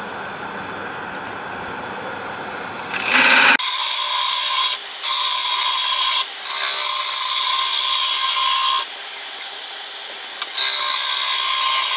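Bowl gouge cutting inside an acacia bowl spinning on a wood lathe. The first few seconds are the lathe running with light tool contact; about three and a half seconds in, loud hissing cutting starts and comes in stretches with short breaks, played back sped up.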